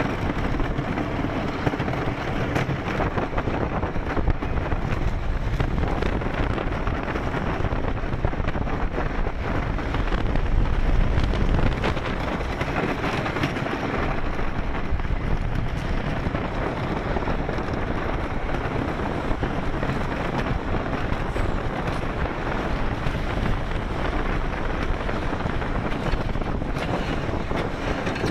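CCI wooden roller coaster train rumbling and clattering over its wooden track from the front seat, a little louder about ten seconds in. The rider calls it a rough ride.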